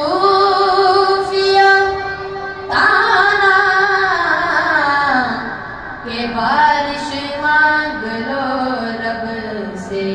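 A boy singing a manqabat (devotional praise poem) unaccompanied into a microphone, in three long drawn-out phrases with held notes and sliding pitch.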